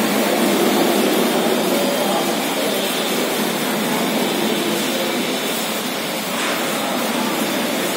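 ATS ELGI automatic car wash running, its tall rotating brushes spinning with a steady, noisy machine din.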